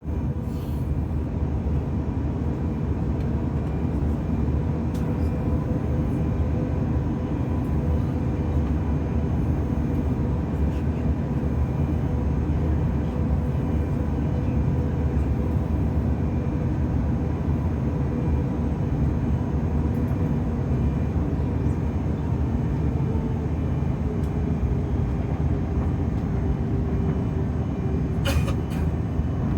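Airbus A330-343X with its Rolls-Royce Trent 700 engines running, heard as a steady low rumble with a constant hum, as inside the cabin on the ground before takeoff. One engine tone drops slightly in pitch in the last several seconds, and a brief clatter sounds near the end.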